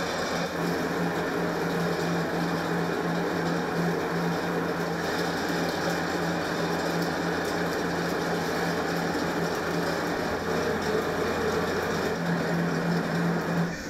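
Commercial electric vegetable cutter's motor switched on and running steadily with a constant hum, slicing green vegetables fed down its feed tubes.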